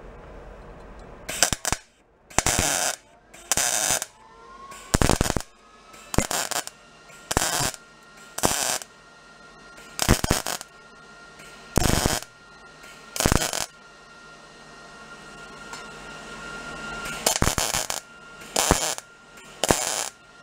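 A MIG welder with its heat turned up lays a series of short stitch welds on a steel washer in a motorcycle headlight bucket. About a dozen crackling bursts, each under half a second, come one to two seconds apart, with a longer pause before the last three.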